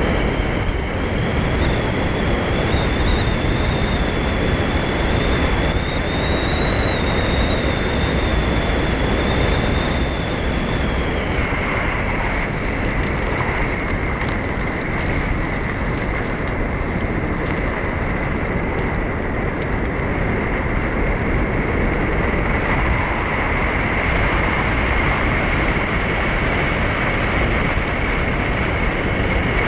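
Steady road noise of a moving car heard from inside the cabin: tyre and engine rumble with a thin high whine. A second high tone wavers in pitch and fades out about eleven seconds in.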